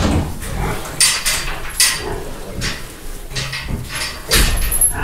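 A sow snuffling and snorting with her nose to the bedding: several short breathy snorts, and a low grunt about three and a half seconds in.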